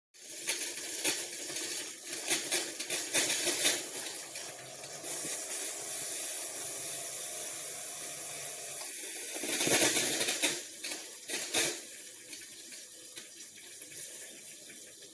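Water running and splashing in irregular surges, with a faint steady hum underneath that stops about nine seconds in.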